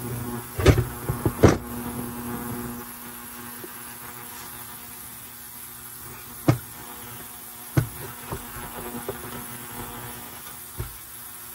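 A few sharp knocks and clicks of tools and saw parts being handled during disassembly, heaviest in the first two seconds, over a steady low hum.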